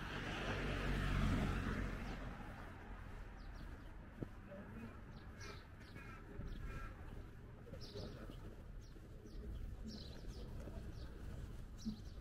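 A car passes close by, loudest about a second in and fading away by two seconds. After that, small birds chirp in short, scattered calls over a steady low hum of distant traffic.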